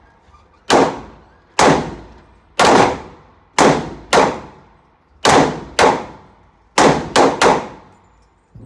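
About ten gunshots at a shooting range in irregular succession, some in quick pairs and a fast triple near the end, each sharp crack trailing off in a short ringing echo.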